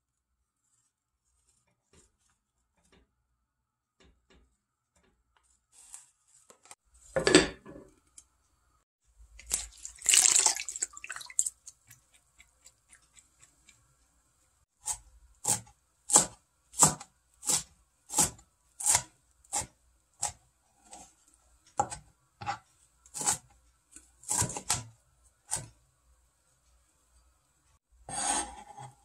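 Kitchen knife chopping greens on a cutting board: a steady run of sharp chops, about one and a half a second.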